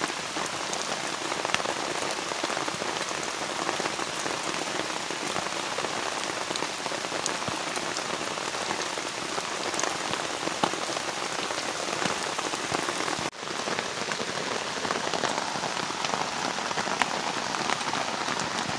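Steady rain falling, a dense hiss with individual drops heard as sharp ticks; the sound drops out briefly about thirteen seconds in.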